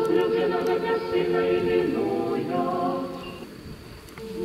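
A choir singing unaccompanied in long held chords. The singing dies down about three and a half seconds in, and the next phrase starts near the end.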